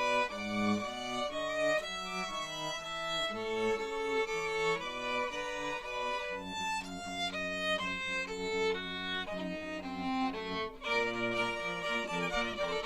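Bowed string music: violin melody over lower string parts, several notes sounding together and changing about every half second. A held low note sits under the moving upper lines for a few seconds in the middle, and the music falters briefly near the end before carrying on.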